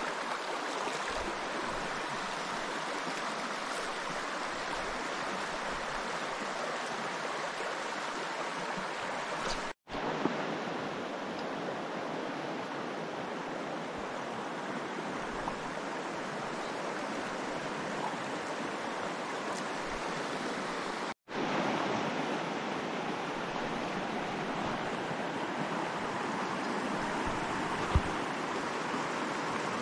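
River water rushing steadily over a shallow, rocky riffle. It cuts out completely for an instant twice, about ten seconds in and again about twenty seconds in, and there is a single light tick near the end.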